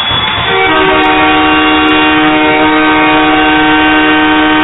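Arena goal horn sounding for a home goal: a loud multi-tone horn that starts about half a second in and holds one steady chord.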